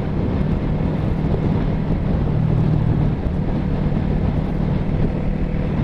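Motorcycle engine running at a steady cruise, heard from the rider's helmet or bike microphone, with wind and road noise rushing over it.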